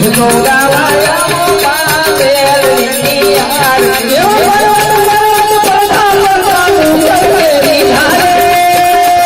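Gujarati devotional aarti: a voice singing a melody with ornaments and long held notes, over instrumental accompaniment and a steady percussion beat.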